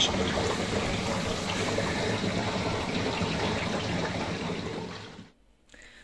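Water running steadily into a boat's newly installed water tanks through the hoses, both tanks filling from a single fill point. It tapers off and stops about five seconds in.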